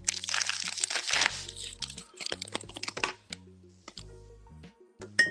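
Background music with a low bass line changing notes every half second or so, under a run of close crackling and clicking noises.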